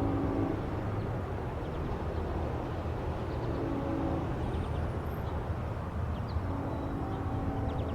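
Locomotive horn sounding a chord of several notes in long and short blasts: a long blast cutting off just after the start, a short one about three and a half seconds in, and another long one starting near the end, a pattern like a grade-crossing signal. A steady low rumble of the train runs underneath.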